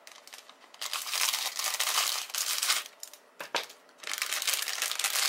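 Thin clear plastic bag around plastic model-kit runners crinkling as it is handled, in two spells: from about a second in until nearly three seconds, then again from about four seconds on.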